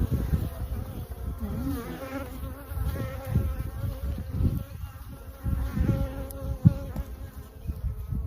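A mass of honeybees buzzing, many wingbeat tones wavering and overlapping, as a freshly opened package colony swarms around. Low knocks and bumps of handling run underneath, with one sharper knock about six and a half seconds in.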